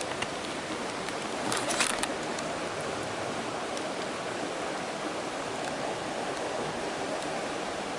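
Small mountain stream running with a steady rushing of water, with a brief louder burst of noise about one and a half seconds in.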